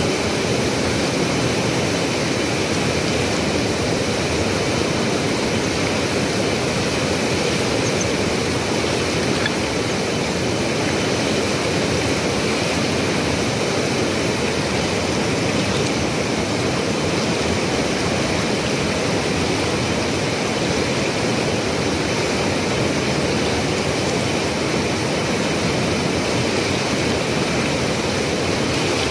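Steady rush of a swollen, fast-flowing river.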